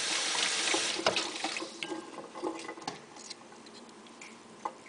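Small clicks and wet taps of a paring knife cutting a peeled tomato held in the hand, with one sharper tap about a second in. A hiss fades out over the first second or two.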